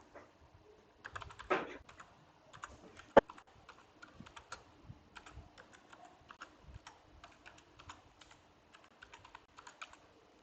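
Typing on a computer keyboard: a run of irregular key clicks, with one sharper, louder click about three seconds in.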